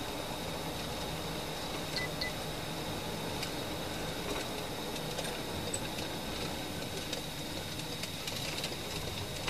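Cabin noise of a police patrol car on the move: a steady hum of engine and tyres on the road. A thin, high steady whine runs underneath, with a few faint clicks about two seconds in and again near the end.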